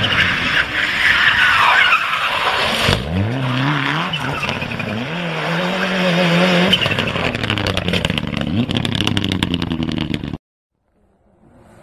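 Mitsubishi Lancer Evolution rally car sliding with tyres squealing for the first few seconds. Its engine then revs up steeply and holds high revs, wavering as the car slides. The sound cuts off abruptly near the end, leaving faint wind noise.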